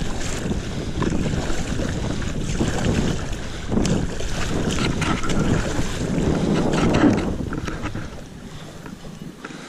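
Wind buffeting the camera's microphone, with water sloshing and splashing as a stand-up paddle's blade strokes through the river beside the board. The rumble eases near the end.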